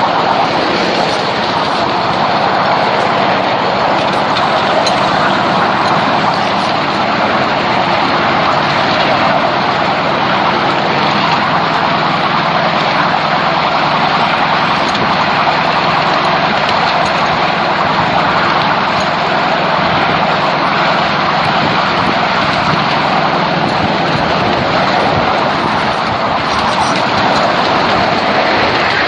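7¼-inch gauge miniature railway train running steadily, heard from a riding car: a constant rolling noise of the wheels on the rails and the train's drive, with no clear beat.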